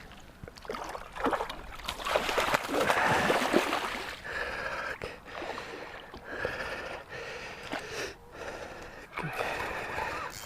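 Water splashing and sloshing at the river's edge, loudest a couple of seconds in, with scattered clicks and knocks.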